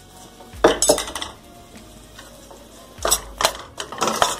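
A metal spoon scraping and clinking against a stainless-steel pan while stirring powdered spices into an onion-tomato masala. It comes in two bouts, one starting about half a second in and another from about three seconds in.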